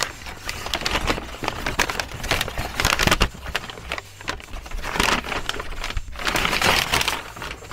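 Crumpled kraft packing paper rustling and crinkling as it is pulled out of a cardboard shipping box and shaken open, in several loud surges.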